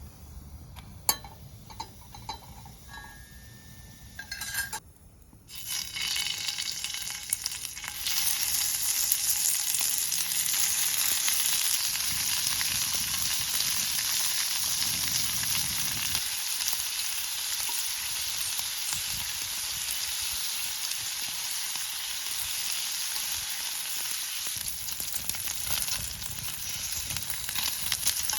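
Food frying in a pan over a wood-burning camp stove: a steady sizzle starts about five seconds in and grows louder a few seconds later. It is preceded by a few light clicks and knocks.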